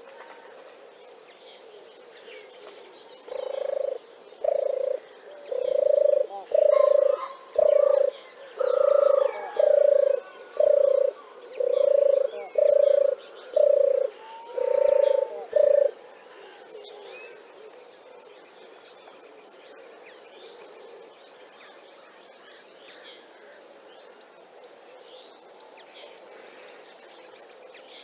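European turtle dove purring: a run of about a dozen low, evenly spaced purring notes, roughly one a second, starting a few seconds in and stopping about halfway. Faint songbird chirps sound behind.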